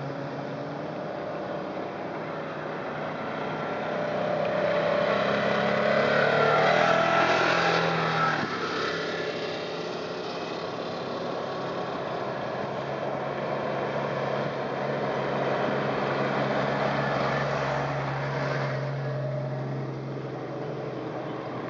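Off-road vehicles driving past on a dirt road over a steady engine hum: a side-by-side UTV goes by close, loudest about six to eight seconds in. A column of Jeeps draws near toward the end.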